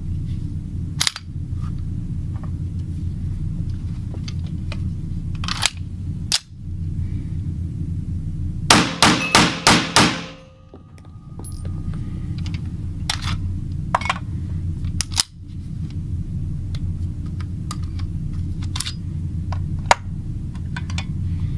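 Pistol shots from an EAA Witness fitted with a .38 Super conversion kit, with a quick string of about five shots about nine seconds in, and single sharp reports scattered before and after. A steady low hum runs underneath.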